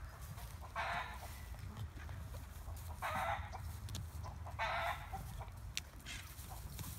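Chicken calling in the pen: three short, loud squawking clucks, about a second in, near the middle, and a second and a half later.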